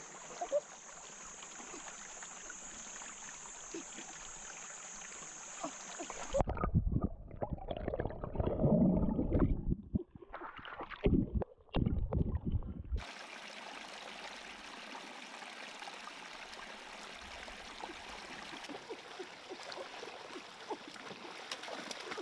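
Outdoor water sounds: a stream trickling and gurgling, with small clicks and a steady high hiss. About six seconds in a louder, rough, low rumble of close water movement takes over for several seconds, then the steady trickle returns.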